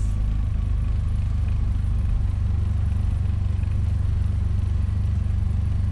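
Engine of a three-wheeled mini-truck motorhome running steadily while driving, heard from inside the cab as an even low drone.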